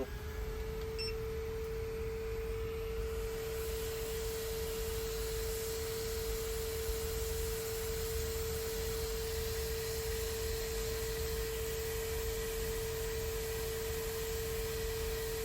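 A steady electronic tone at one low-middle pitch, held unbroken, with a hiss that grows louder about three seconds in.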